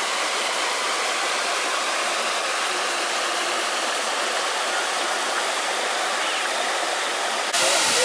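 Waterfall and rocky cascade: falling water making a steady, hissing rush. About seven and a half seconds in, the sound cuts abruptly to a louder rush.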